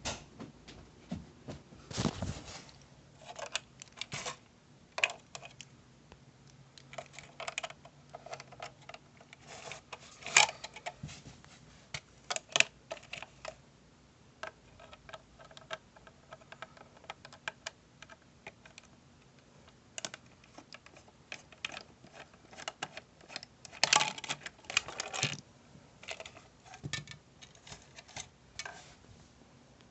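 Irregular light clicks, taps and knocks, with louder clusters about ten seconds in and again around twenty-four seconds.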